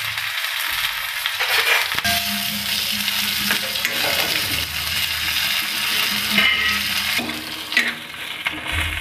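Cumin seeds, garlic and green chillies sizzling steadily in hot mustard oil in a kadhai, a metal ladle stirring and scraping through them.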